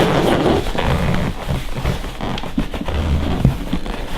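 Leather home theater recliner being worked back and forth, with a brief creaking squeak of leather rubbing at the start, then irregular knocks, thuds and rustling from the seat and its handling. The squeak is the friction of the reclining back's leather against the inside of the chair's side, which is being treated with paraffin wax.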